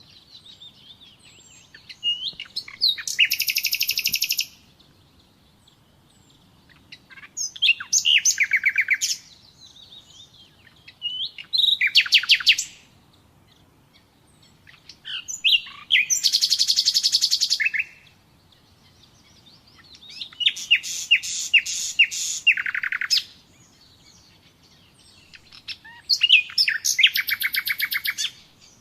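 Common nightingale singing: six phrases of rapid repeated notes and trills, each one to three seconds long, separated by pauses of a few seconds with faint chirps between them.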